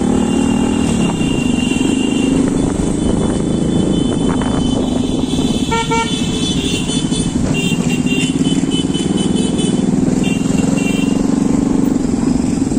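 Motorcycle engine running steadily on the move, with road noise. A vehicle horn toots briefly about six seconds in.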